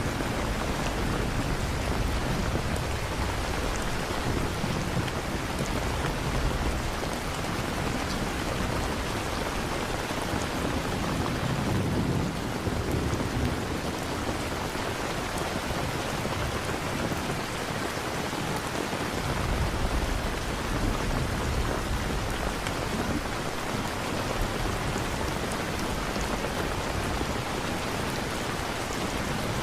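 Steady heavy rain with low rolls of thunder rumbling now and again, most strongly about twelve seconds in and again about twenty seconds in.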